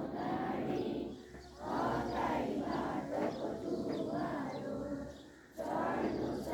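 A large group of children singing together in unison, in long phrases broken by short pauses for breath about a second in and again around five seconds in.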